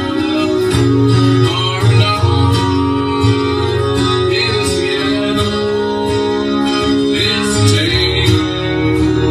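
A song with guitar and a singing voice.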